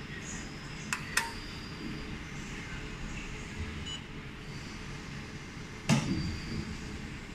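200W jewelry laser welding machine powering up: a steady machine hum, two sharp clicks about a second in, and a heavier clunk about six seconds in as the machine starts.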